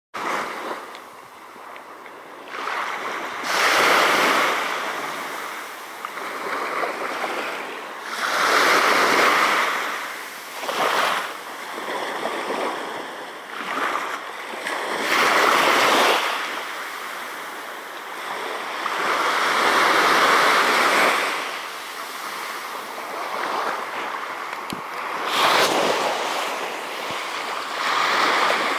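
Small waves washing up on a sandy beach, a hiss that swells and fades every few seconds as each wave comes in.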